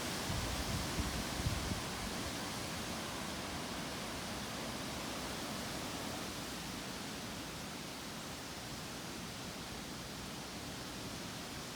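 Stormy wind blowing through the yard's trees: a steady rushing hiss, with a few low buffets of wind on the microphone in the first couple of seconds.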